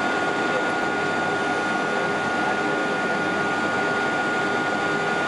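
Steady jet engine noise inside the cabin of a Boeing 707 in flight: an even rushing with a constant high whine from the engines over it.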